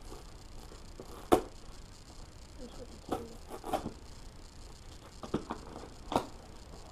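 Handling noise from unboxed parts and packaging: a handful of short, sharp clicks and knocks at uneven intervals, the loudest about a second and a half in.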